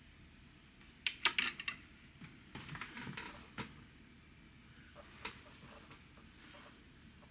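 A few light clicks and clatters of small hard objects being handled and set down: a quick cluster about a second in, softer knocks a little later, and one more click near the middle.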